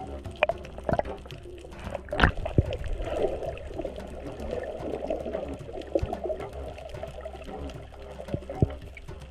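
Underwater sound on a coral reef as picked up through a camera housing: muffled water movement and gurgling, with scattered sharp clicks and knocks, the loudest about two seconds in.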